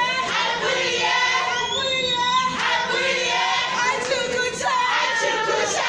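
A group of people singing together in a lively chorus, with shouts among the singing.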